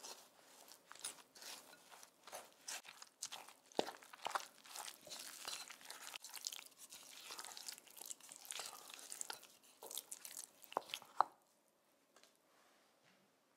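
Wooden spoon stirring and mashing crumbled firm tofu with flour and chopped vegetables in a glass bowl: an irregular run of wet crunching and squishing, with a few sharper clicks near the end before it stops about eleven seconds in.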